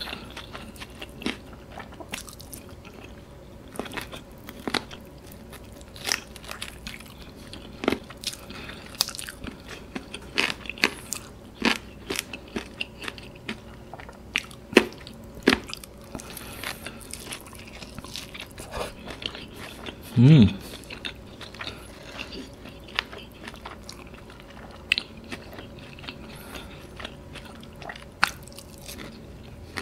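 Close-up chewing and biting of crumb-coated bone-in fried chicken karaage: scattered sharp crunches and clicks among steady chewing. A brief low hum from the eater comes about twenty seconds in.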